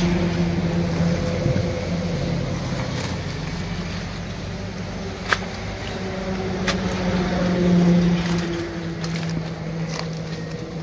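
A small engine running steadily, its drone swelling about eight seconds in and then fading, with scattered light ticks and rustles and one sharp click about five seconds in.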